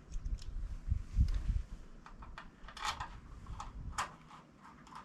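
Low rumbling handling noise, then scattered light clicks and taps of hand tools, such as a Torx driver, working screws into a steel plate.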